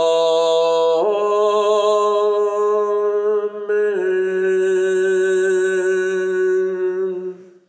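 A man's voice singing a cappella, holding long wordless notes as the hymn's closing: the pitch changes about a second in and again about four seconds in, and the sound fades out near the end.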